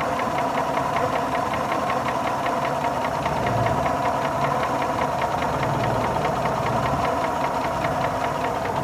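Engine idling with a steady, rapid, evenly spaced knocking: the engine knock the owner is trying to trace.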